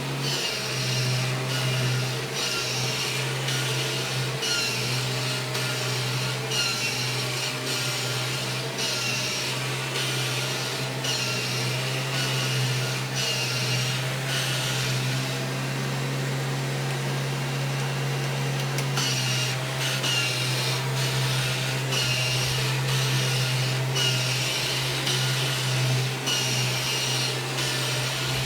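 1997 Kirby G5 upright vacuum cleaner running steadily with a motor hum, pushed back and forth, its hiss swelling and fading about every two seconds with each stroke.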